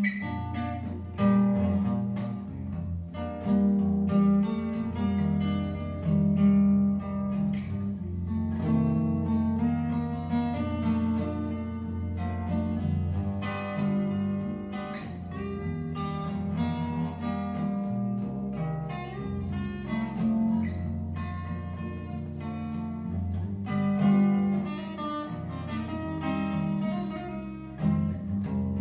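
Steel-string acoustic guitar played fingerstyle, with no singing: plucked bass notes keep a steady line under a picked melody.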